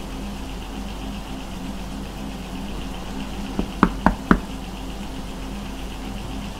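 Three quick knocks on a bedroom wall about four seconds in, just after a fainter tap, over a steady low hum.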